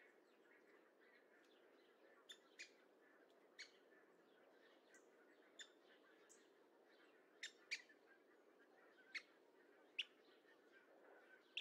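Bird chirps: about nine short, sharp call notes at irregular intervals, louder in the second half, over a faint steady background hiss.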